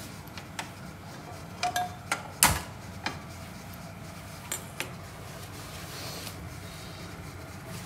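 Gas kitchen stove being lit and cookware handled: a handful of sharp clicks and knocks, the loudest about two and a half seconds in, with a faint hiss near the end.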